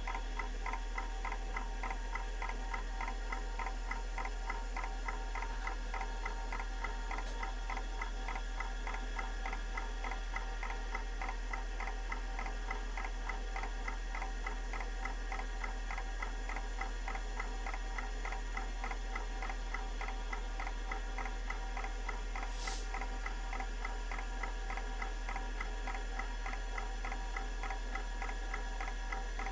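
Kalok KL343 Octagon IDE hard drive ticking in a rapid, even rhythm as its heads step across the disk during a surface scan for bad sectors, over a steady low hum.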